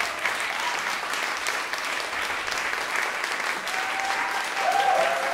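A small audience applauding with steady, dense clapping. Near the end a few brief pitched calls rise and fall over the clapping.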